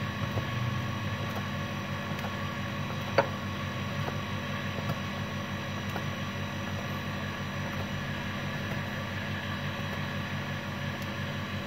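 Kitchen knife cutting soft rice noodle sheets into strips on a plastic cutting board: light scattered taps of the blade on the board, with one sharper knock about three seconds in, over a steady mechanical hum.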